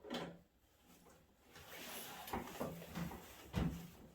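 Scraping and knocking of metal parts as an old microwave oven is pried apart, with a sharp clack at the start and a heavier knock about three and a half seconds in.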